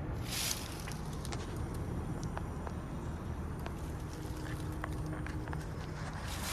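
Mitsubishi mini-split heat pump outdoor unit running in heat mode: a steady low hum from the compressor and fan, with a short burst of hiss about half a second in.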